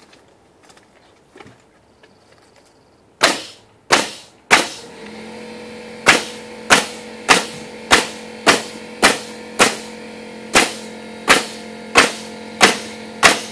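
Pneumatic nail gun driving nails into a 3/4-inch poplar plywood sill: two sharp shots about three seconds in, then a steady run of shots a little under two a second from about six seconds on. A steady motor hum, the air compressor, starts about five seconds in and runs under the nailing.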